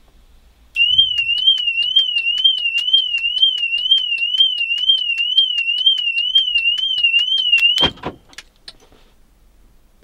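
Mercedes-Benz E-Class W212's anti-theft alarm siren going off inside the cabin, set off by the interior motion sensor as a hand reaches in: a loud high tone warbling up and down about twice a second, with regular clicks in time with it. It cuts off suddenly near the end with a loud thump, then a few faint clicks.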